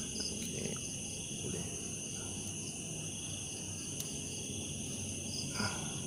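Steady, high-pitched chorus of insects, with a few faint clicks.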